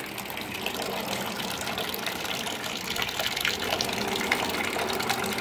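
Water pouring from a pipe into a tank of water, a steady splashing and bubbling.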